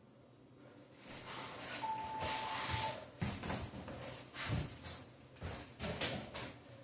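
A person getting up off a hard floor and moving about in sneakers: rustling, then several dull thumps and footfalls. A single steady beep, lasting about a second, sounds about two seconds in.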